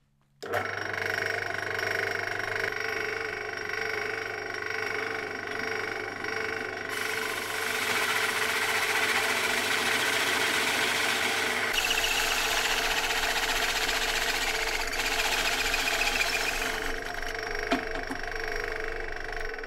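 Pillar drill switched on, its motor running with a steady hum, while an 86 mm toothed hole saw cuts through 18 mm plywood; the cutting noise is loudest through the middle and eases near the end as the saw comes clear of the wood.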